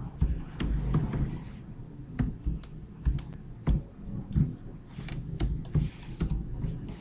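Typing on a computer keyboard: irregular key clicks, a few a second with short pauses between bursts.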